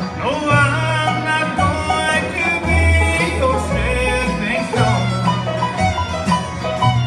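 Bluegrass band playing, with banjo and fiddle over low bass notes.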